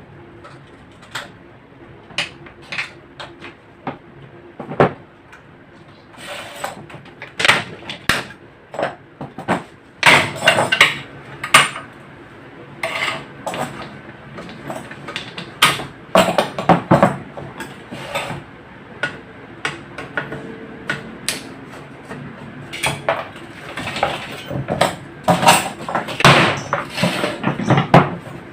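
Irregular metallic knocks and clatter of hands-on workshop work on a microwave oven's sheet-metal parts. The impacts are scattered at first and come thicker and louder after about ten seconds.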